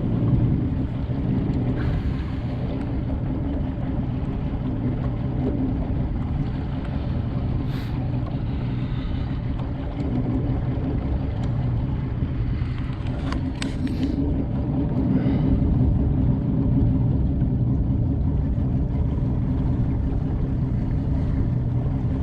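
Bass boat's outboard motor running steadily with a low rumble, with a few brief clicks around the middle.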